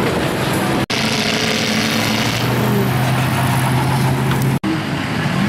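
Pickup truck engines running, heard in three short segments split by abrupt cuts; in the middle segment one engine holds a steady low drone.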